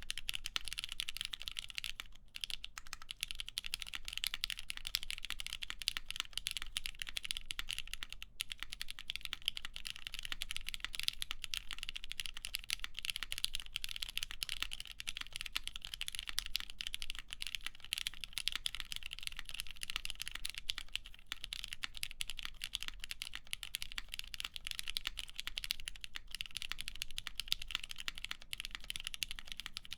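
Continuous fast typing on a mechanical keyboard with lubed Cherry MX Black linear switches in a full aluminium plate, topped with GMK keycaps: dense, steady keystrokes without pauses.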